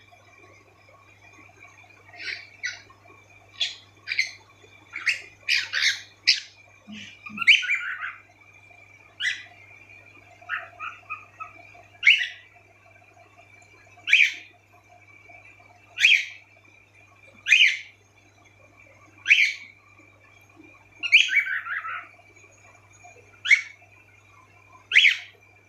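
Pet cockatiels calling with short, sharp chirps: a quick cluster of them in the first eight seconds, then single calls about every two seconds.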